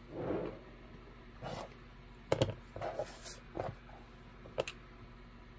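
Scattered short knocks, clicks and soft rustles of hands handling an acrylic quilting ruler, a rotary cutter and small trimmed fabric squares on a cutting mat.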